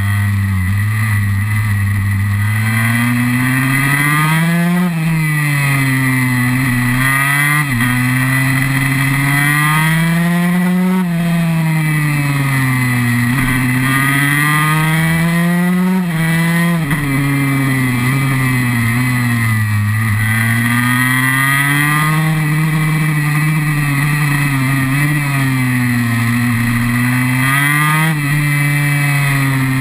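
KTM SX 144 two-stroke single-cylinder engine, ridden hard as a supermoto: its pitch climbs steeply under acceleration, drops sharply at each upshift, then winds down under braking into the corners, repeating every few seconds.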